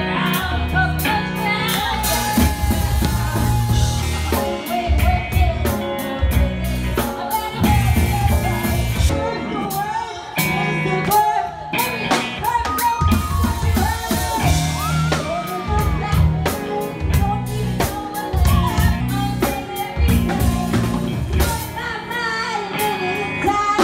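Live rock band playing: a woman singing lead over electric guitar, bass guitar and a drum kit.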